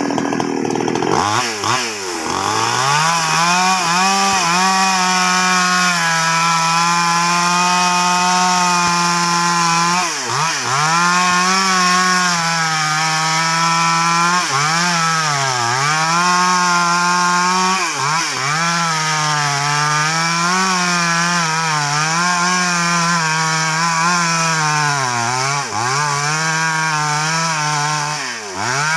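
Two-stroke chainsaw revving up about a second in, then running at full throttle as it cuts through baros timber. Its pitch dips again and again as the chain bogs down in the wood and recovers.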